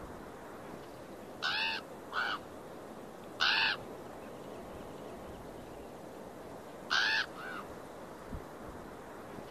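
A bird calling: five short calls, each rising and falling in pitch, two of them in quick pairs and one alone, over a steady faint rush.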